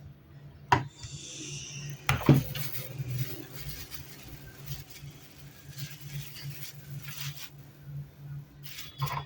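Small hard parts being handled: a sharp click under a second in, a louder knock a little after two seconds, then rubbing and scraping, with another click near the end. A steady low hum runs underneath.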